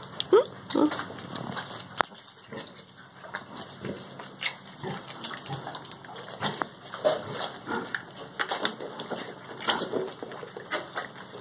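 Piglets feeding, grunting as they go, with a couple of short squeals about half a second in. Many small smacking and crunching sounds run through it: the piglets are sipping milk from a pan and chewing feed pellets.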